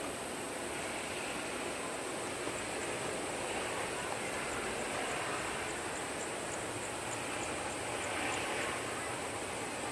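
Boeing 737-800 airliner's CFM56 jet engines running at low approach power as it comes in to land: a steady rushing hum that swells slightly near the end.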